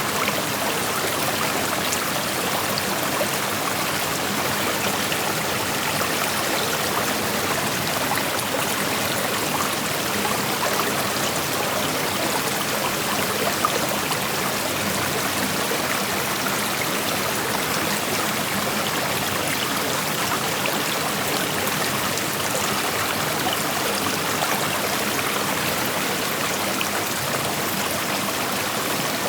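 Creek water flowing and rushing over rocks, a steady, even burble with small trickles and splashes mixed in.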